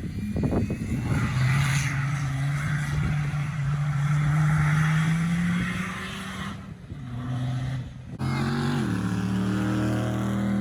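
Off-road 4x4's engine pulling under load, its pitch rising slowly for several seconds, then easing off and holding a steady lower note after an abrupt break about eight seconds in.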